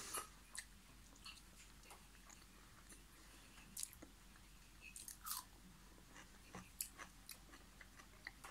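Faint chewing with scattered small mouth clicks as a person eats a piece of boiled egg.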